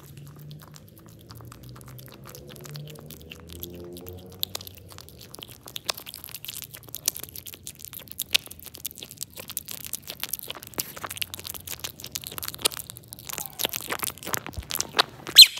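Baby otter chewing a fish: irregular crunching and smacking clicks, growing busier after about four seconds. A short, loud, high-pitched squeak near the end.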